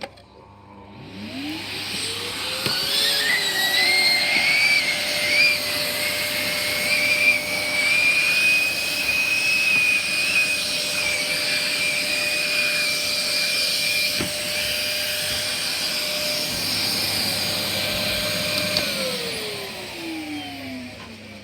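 A motor spinning up over about two seconds to a steady whine, with a rushing air noise and a wavering whistle, running evenly and then winding down over the last couple of seconds.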